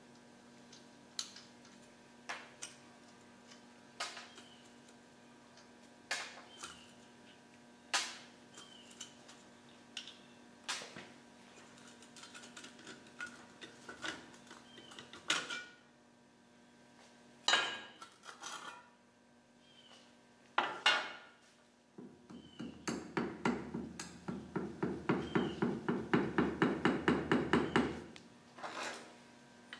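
Steel hand tools clicking and clinking on the nuts of a Dana 60 front axle's dust shield as they are loosened: separate sharp metallic clicks every second or two, a few louder knocks, then a faster run of rhythmic clicking for several seconds near the end.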